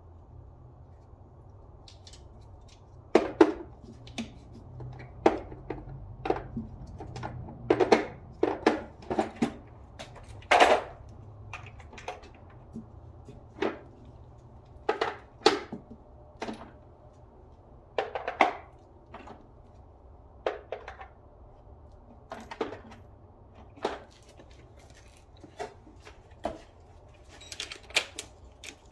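Metal hand tools clinking and knocking at irregular intervals, like sockets and wrenches being picked up and set down, over a steady low hum.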